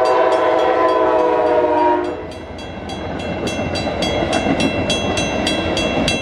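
Train horn sounding one loud held chord that cuts off about two seconds in, followed by the rumble of the train passing close by. A grade-crossing bell rings rapidly and steadily throughout.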